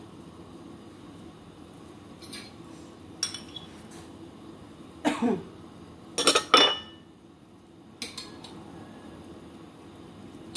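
Square ceramic dishes clattering as one is set down onto a stack, the loudest clatter about six seconds in, with a few lighter clinks before and after, over a low steady hum.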